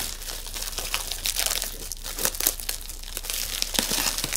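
Plastic packaging crinkling and crackling in quick irregular crackles as it is handled and pulled open.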